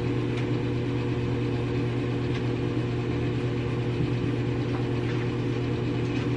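Steady, low mechanical hum of a running electric motor: a few held low tones over a light hiss, unchanging.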